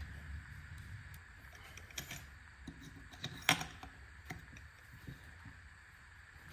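Scattered light metallic clicks and taps of hand tools and bolts as the cylinder bolts of a Stihl 024 chainsaw are fitted and driven in. The sharpest clicks come about two and three and a half seconds in.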